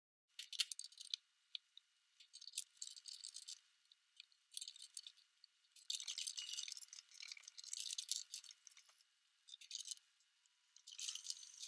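Faint clinking and rattling of small stainless steel hardware (carriage bolts and nuts) being handled during bench assembly, in short irregular bursts.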